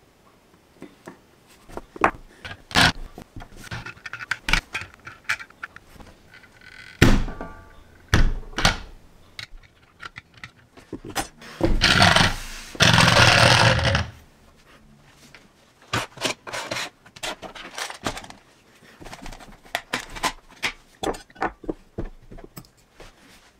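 Scattered small clicks and knocks of LEGO pieces handled with metal tweezers and pressed onto the model. About twelve seconds in comes a loud two-second rolling scrape as the finished LEGO taxi is pushed across the tabletop on its wheels, then more light clicks.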